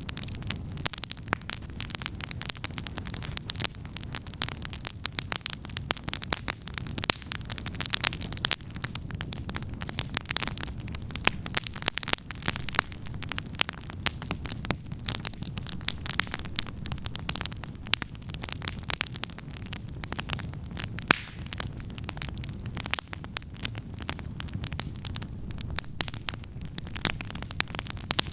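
Wood campfire crackling steadily, with many small irregular pops and snaps over a low steady rumble.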